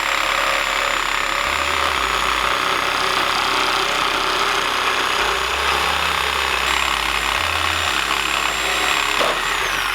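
Power tool running steadily, with a thin high motor whine that drops in pitch near the end.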